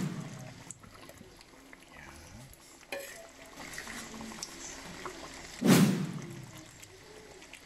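Sliced carrots and red bell pepper tipped into a pan of thick simmering coconut-milk stew, landing with a soft wet splash about six seconds in. A sharp tap comes about three seconds in.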